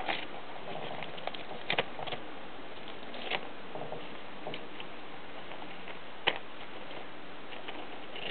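A hamster gnawing and nosing at a cling-film-wrapped cardboard tube in wood shavings: scattered crinkles and clicks, the sharpest a little after six seconds in, over a steady hiss.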